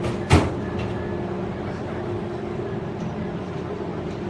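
Steady mechanical hum and rumble of cable car machinery, with one sharp knock just after the start.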